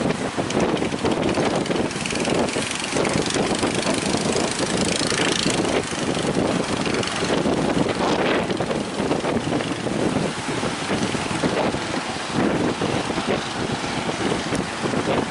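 Strong wind buffeting the microphone over the steady rush of heavy surf.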